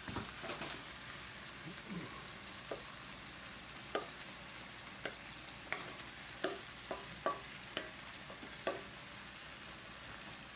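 Shrimp and a pepper sofrito sizzling faintly in a frying pan as the raw shrimp are tipped in, with scattered light clicks and knocks of bowl and utensil against the pan.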